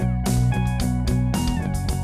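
Background music with a steady beat over sustained bass notes.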